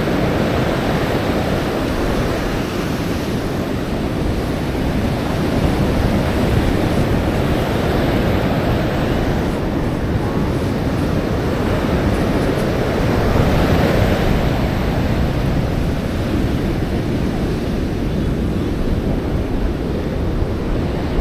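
Ocean surf washing on the beach, mixed with wind buffeting the microphone: a loud, continuous rush that swells a couple of times.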